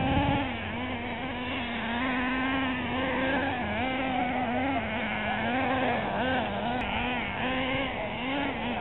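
Several radio-controlled racing cars running on a dirt track. Their motors sound as overlapping pitched tones that rise and fall over and over as the throttles are worked through the corners.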